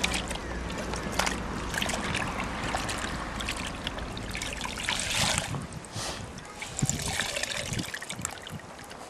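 White laundry being hand-washed in a bucket of water: wet cloth lifted out and pushed back in, with water trickling and splashing off it.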